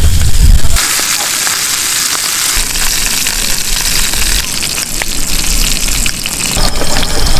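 Pork belly sizzling in oil in a frying pan, a steady hiss, with a few light clicks of the metal tongs and scissors at the pan. A low rumble in the first second cuts off suddenly.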